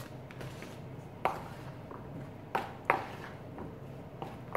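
Metal spoon knocking against a bowl a few times, sharp clinks with a short ring, while stirring sliced raw potatoes in flour.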